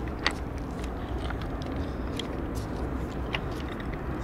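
Hands handling a fishing feeder and bait bag: scattered clicks and rustles, one sharper click about a quarter second in, over a steady low rumble.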